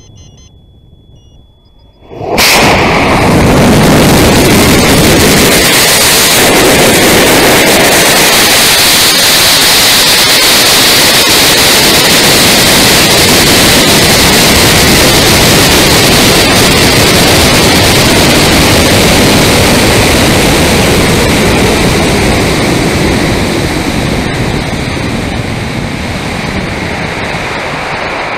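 Faint beeps, then about two seconds in an AeroTech M1315W White Lightning rocket motor ignites with a sudden, very loud roar heard from a camera riding on the rocket. The roar runs on as a steady rush of air and motor noise while the rocket climbs, shifting to a higher hiss about six seconds in and slowly fading over the last few seconds.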